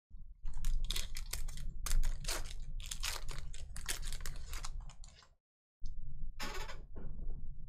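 Foil wrapper of a Panini Contenders Football hobby pack being torn open and crinkled: a fast, dense run of crackles and snaps. Then the cards slide and click against each other as they are fanned through. The sound cuts out for a moment about two-thirds of the way in.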